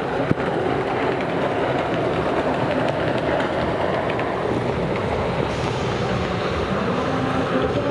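Racing jet ski engines running at high throttle, a steady dense drone mixed with the hiss of water spray.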